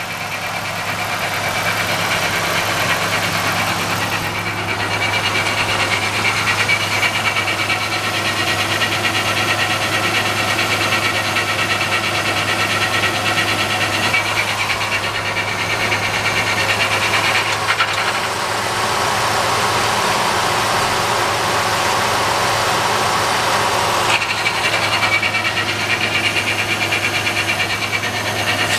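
1997 Ford Ranger's 3.0L V6 running at idle with the automatic transmission in gear, a steady hum under a rough grinding noise that changes character a few times. The grinding comes from the transmission whenever it is in Reverse or a Drive gear; the truck has a stored P1744 code, which points to the torque converter clutch solenoid.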